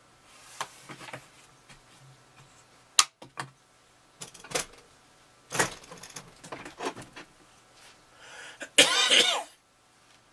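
Sped-up working sounds of clay sculpting: scattered clicks and taps of hand tools and copper armature wire against Plasticine clay, with a short, loud burst near the end that has a high, voice-like pitch.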